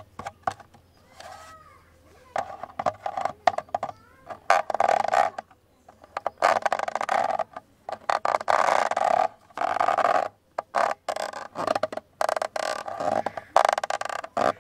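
Scratching and tapping on a camera body: rough scraping strokes, each about a second long, broken up by many quick sharp clicks.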